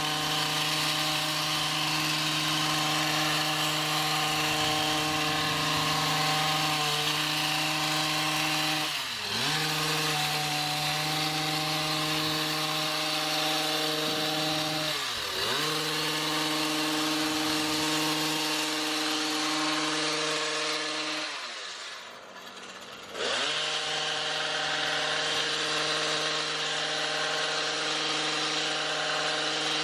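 Small gas engine of a motorized yard tool running steadily at high speed. Its pitch dips and recovers three times, twice briefly and once, near the end, for about two seconds, as the engine slows and speeds back up.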